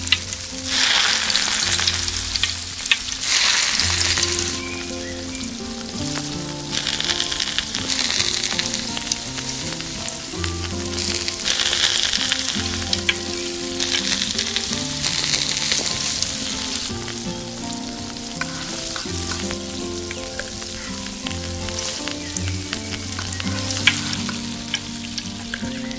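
Pieces of fish frying in hot oil in a miniature clay pot. The sizzle swells each time pieces go in or are stirred, with small clicks of a tiny metal spoon against the pot.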